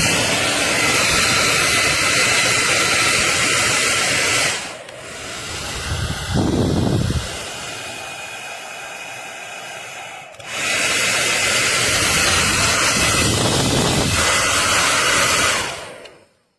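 Revlon 1875W compact hair dryer running with a loud, even rush of air. About four and a half seconds in, the rush drops to a quieter level for roughly six seconds, then comes back up to full. It cuts off shortly before the end.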